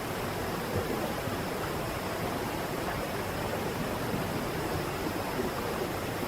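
Waterfall pouring off a cliff: a steady, even rush of falling water with no breaks.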